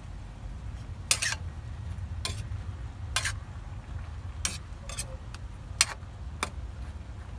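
Tongs and a spatula knocking against a metal wok while tossing sliced eggplant: about seven sharp, separate clacks at uneven intervals over a low, steady rumble.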